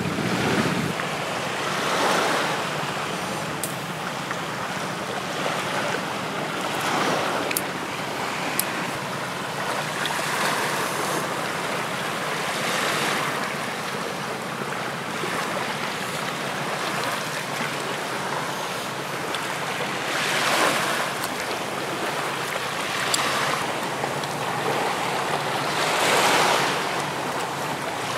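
Waves breaking on a sandy shore: a steady wash of surf that swells every five or six seconds, with a few faint ticks.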